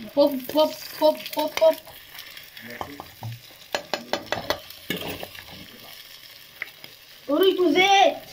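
Eggs frying in hot oil in a frying pan, sizzling steadily, with a spatula clicking and scraping against the pan about four seconds in. Short bursts of a person's voice come at the start and more loudly near the end.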